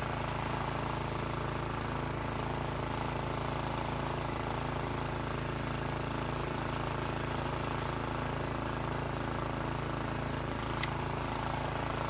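Toro Power Max 828 two-stage snowblower's engine running steadily as the machine cuts through deep, heavy wet snow. A single short tick is heard near the end.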